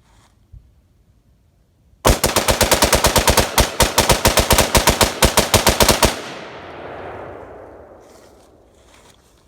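AR-15 rifle with a binary trigger firing .223 rounds in a rapid string, roughly thirty shots in about four seconds, starting about two seconds in. A long echo fades away after the last shot.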